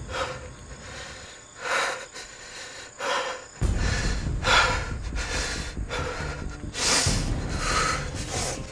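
A man breathing hard, a series of heavy breaths and snorts about a second apart, over a low background rumble.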